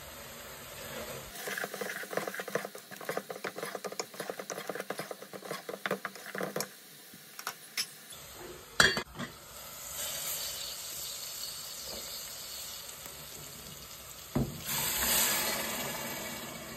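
A metal spoon stirs and scrapes fried onions and spice powders in a metal pot, with rapid clinks and scrapes for several seconds, then one sharp clank about nine seconds in. After that the masala sizzles steadily in the oil, and the sizzle swells near the end as dried fish pieces go into the pot.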